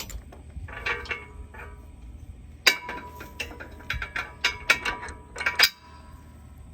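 Sharp metal clicks and clanks as a tractor's three-point top link is fitted to a quick hitch, the steel link, pin and hitch knocking together. After a short cluster about a second in, a dense run of clanks follows through most of the second half, with a faint metallic ring.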